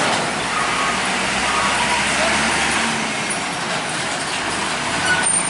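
Heavy trucks driving past on a road, a loud, steady rush of engine and road noise with no pause.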